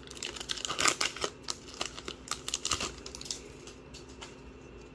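Foil Pokémon booster-pack wrapper crinkling and crackling as it is handled, loudest about a second in and dying down after about three seconds.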